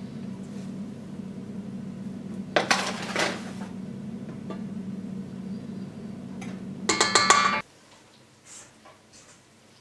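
Electric stand mixer with a steel bowl and dough hook running with a steady hum while bun dough is mixed. There is clattering about three seconds in and a burst of ringing metal clinks against the bowl near seven seconds. The motor then cuts off suddenly.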